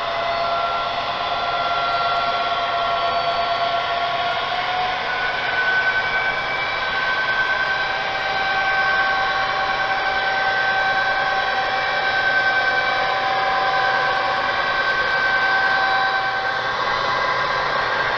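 HO-scale model diesel freight train running, its locomotives giving off a steady whine made of several overlapping tones that drift slowly up and down in pitch.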